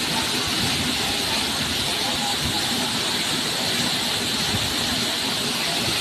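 Waterfall crashing into a rock pool close by: a loud, steady rush of falling water.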